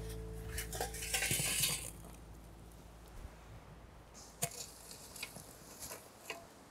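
Lit charcoal shovelled into a brick-lined pit: a short rattling pour about a second in, then scattered light clinks of coals and the metal shovel.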